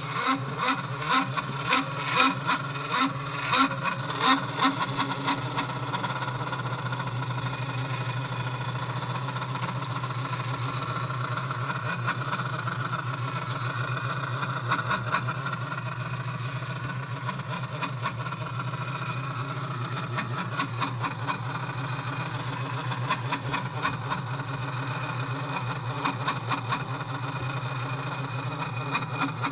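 A steady mechanical hum from a 2016 BMW X6 (F16) after its engine has been switched off, a noise the owner calls loud and strange. It pulses about one and a half times a second for the first few seconds, then settles into an even hum.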